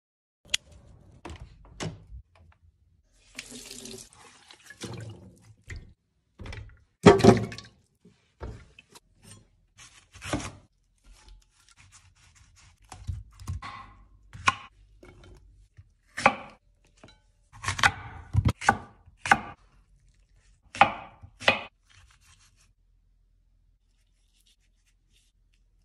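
A kitchen knife cutting fresh fruit on a wooden cutting board, giving irregular sharp cutting strokes and wet slicing sounds through the pineapple's flesh and rind.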